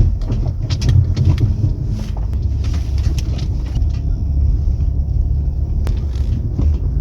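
Minivan driving slowly over a rough trail: a steady low rumble with scattered knocks and rattles from the body and suspension.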